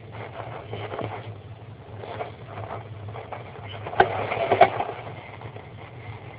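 An American kestrel shuffling and turning on the wood-chip lining of a wooden nest box: rustling and scraping of the chips and claws, with two sharp knocks about four seconds in, over a steady low hum.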